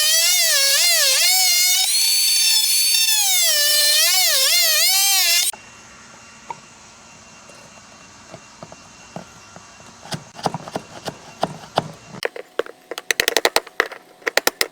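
Handheld power tool cutting into wooden door-frame molding: a loud, high-pitched whine whose pitch dips and recovers as the blade bites, cutting off suddenly about five and a half seconds in. After it come quieter taps and scrapes, and a quick run of sharp clicks near the end.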